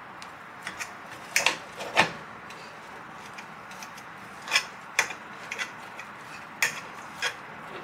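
Metal fork clinking against a stainless steel pot while mashing boiled red-skin potatoes, about ten sharp, irregular clinks.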